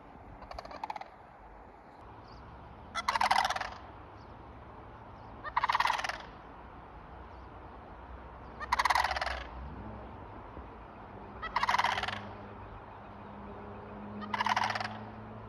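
Sandhill cranes calling: six rolling, rattling calls about every three seconds, the first one faint.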